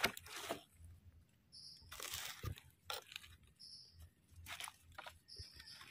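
A knife cutting and scraping through damp soil and leaf litter, heard as a few short, faint crunching rustles. Then a dry rustle as a freshly cut mushroom is set into a woven bamboo basket.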